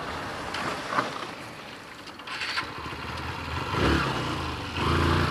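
Motorcycle engine running at low speed under road and wind noise, its note swelling twice near the end.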